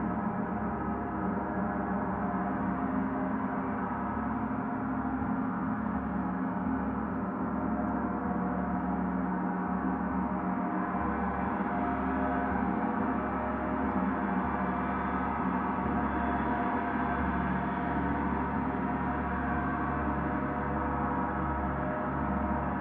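Several gongs ringing together in a dense, sustained wash of many overlapping tones with a deep low hum beneath, the level steady and no single strike standing out.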